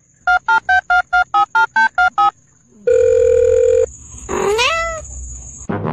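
Touch-tone phone keypad dialling tones dubbed in as a sound effect: about ten quick two-note beeps, then a steady tone lasting about a second, then a short call rising in pitch.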